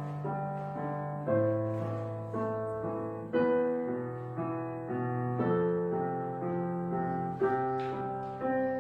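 Background piano music: a slow, gentle melody over low sustained notes, with new notes struck about once a second and each left to ring and fade.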